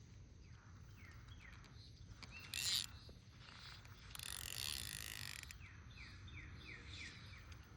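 Faint creek-side ambience with a bird giving runs of short, quick falling chirps, about five a second. A brief hiss comes about two and a half seconds in, and a longer one for about a second near the middle.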